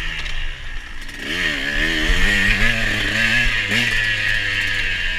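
KTM 125 two-stroke dirt bike engine being ridden hard: it eases off briefly near the start, then revs up and down over and over as the throttle is worked, with a raspy exhaust note.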